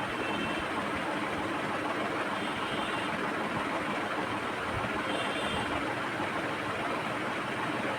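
Steady background rumble and hiss with no clear events, and a few faint, brief high tones about three and five seconds in.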